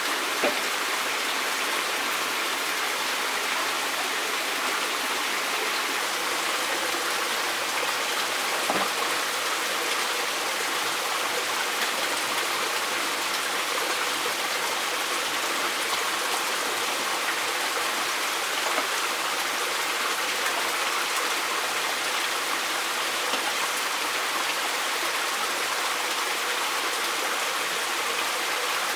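Running water making a steady, even rush, with a couple of faint knocks about half a second and nine seconds in.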